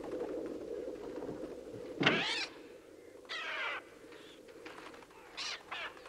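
Harsh bird screeches and caws: four short cries, the loudest about two seconds in and two brief ones near the end, over a low steady drone that fades away in the first two seconds.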